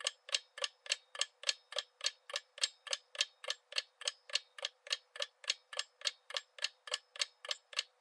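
Clock-ticking sound effect marking a quiz countdown timer: steady, evenly spaced sharp ticks, about three to four a second.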